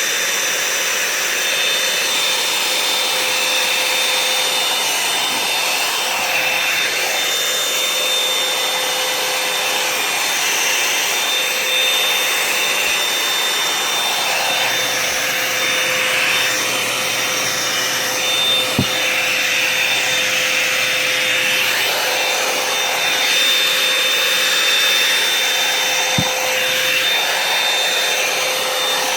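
Revlon One-Step hair dryer and volumizer hot-air brush running, a steady rush of blown air with a constant high motor whine and a lower hum, its air noise shifting a little as it is worked through the hair.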